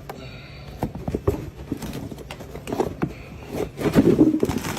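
A car part being pulled out by hand, with walnuts stashed inside it by rodents clattering and knocking loose. The knocks are irregular and come thickest and loudest about four seconds in.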